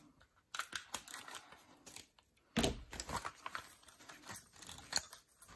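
Clear plastic packaging sleeve crinkling and rustling as it is opened and handled, with irregular sharp crackles, the loudest about two and a half seconds in.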